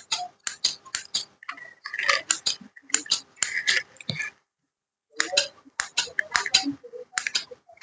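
Scissors snipping through hair: a quick run of short, crisp snips, several a second, pausing briefly a little past halfway.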